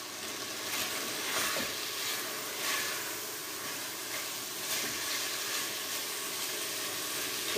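Diced sweet potato and vegetables sizzling steadily in a frying pan, with a few soft scrapes of a silicone spatula as they are stirred.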